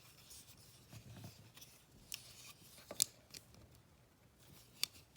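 Metal clicks and light rubbing of a multitool's folding tools being worked by hand: a faint rub about a second in, then a few sharp clicks, the loudest about three seconds in.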